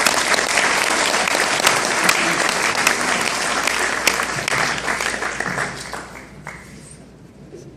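Crowd applauding, a dense clatter of clapping that dies away about six seconds in.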